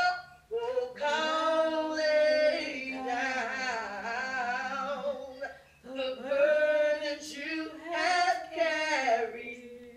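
A woman singing unaccompanied, slow and drawn out, holding long notes with vibrato. She breaks off briefly about half a second in and again near six seconds.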